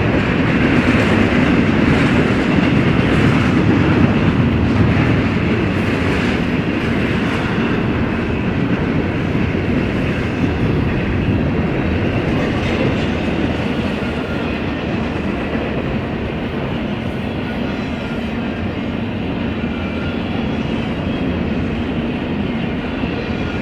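BNSF intermodal freight train's container cars rolling past: a steady rumble of steel wheels on rail, slowly easing in level.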